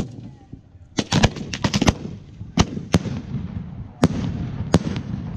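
Fireworks going off: a sharp bang at the start, a quick cluster of cracks about a second in, then single bangs every half second to a second, over a steady rumble.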